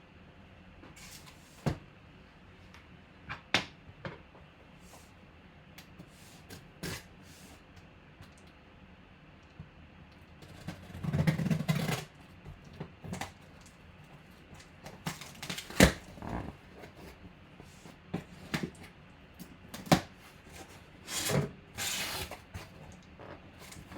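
Trading card box and its packaging being handled and opened: scattered sharp clicks and taps, with a longer rustling burst about eleven seconds in and another near the end.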